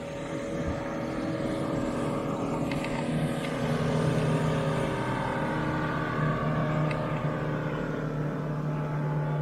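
Motorboat engine running steadily, growing louder over the first few seconds.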